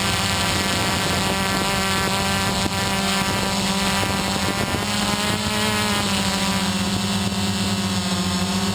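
XP2 quadcopter's four electric motors and propellers running steadily in flight, heard up close from the camera carried on it. The pitch bends up and back down about five to six seconds in.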